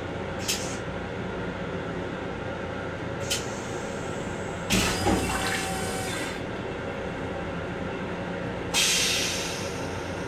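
Stainless-steel toilet in an M7 railcar restroom flushing: two short hisses, then a loud rush of water into the bowl lasting about a second and a half, and another fading hiss near the end. The steady running noise of the train continues underneath.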